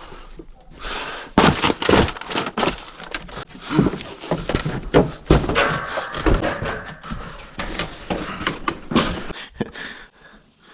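Irregular knocks, thumps and scraping of someone moving about in a cramped attic and handling things.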